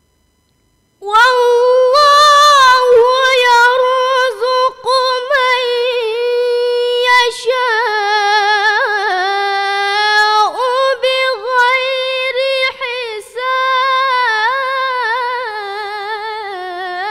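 A girl's voice reciting the Qur'an in melodic tilawah style, starting about a second in after silence, with long held notes decorated by rapid wavering turns.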